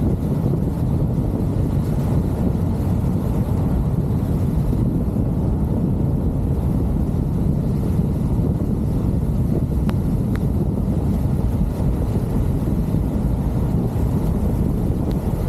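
Wind buffeting the microphone of a camera mounted outside a moving car, a steady low rumble mixed with the car's road noise.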